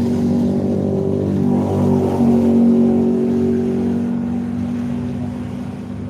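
Large bus's diesel engine running under power as it passes, loudest about halfway and then fading away.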